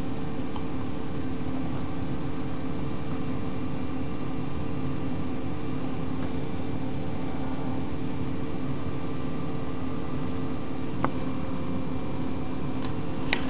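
Steady machine hum over an even hiss, with one faint click about eleven seconds in.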